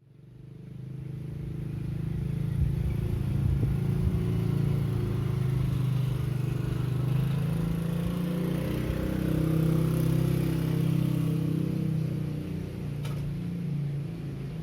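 A motor vehicle's engine running close by, its pitch shifting up and down, fading in over the first couple of seconds, with a single faint click near the end.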